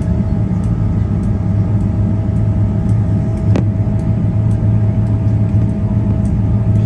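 Jet airliner taxiing, heard from inside the cabin: a steady low drone of engines at idle with a faint steady whine above it, and one brief click about halfway through.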